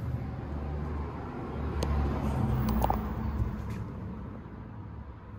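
Low motor-vehicle engine rumble that swells about two seconds in and fades toward the end, with a few light clicks near the middle.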